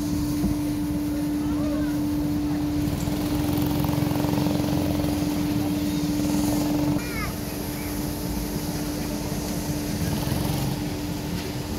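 Small go-kart engines running on a track, with voices in the background.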